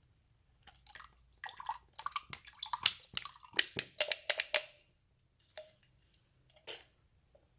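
Slime being squished and mixed by hand: a quick run of wet, sticky clicks and pops for about four seconds, then two single pops.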